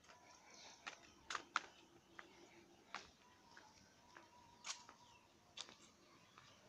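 Faint outdoor ambience: scattered short chirps and clicks, loudest about a second and a half in, over a faint steady high tone.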